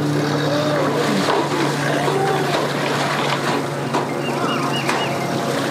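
Suzuki outboard motor running at low speed as a center-console boat pulls away from the dock, a steady low hum over the sound of churning water. A few short high chirps come near the end.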